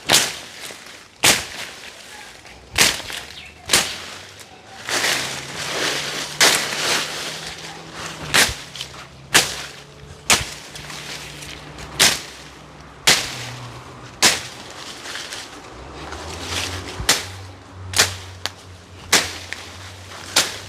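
Chopping at cut tree branches with a blade: a sharp strike about once a second, some with a swish just before. A faint low hum comes and goes behind the strikes.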